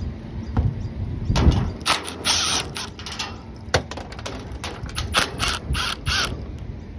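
Milwaukee Fuel brushless cordless driver running in several short bursts as it backs screws out of the sheet-metal side panel of an air-conditioning package unit. Sharp clicks and knocks of the tool and screws on the metal casing come between the runs.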